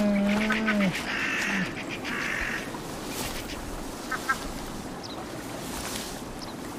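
A long, low animal call, held steady and dropping in pitch as it ends about a second in, then a short second note. After that comes a brief rustle and a faint background with a few small chirps.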